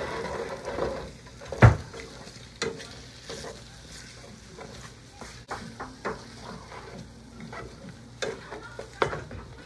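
Marinated beef sizzling in a frying pan while a wooden spatula stirs it, scraping and knocking against the pan. The sizzle is strongest in the first second, and the loudest knock comes a little under two seconds in.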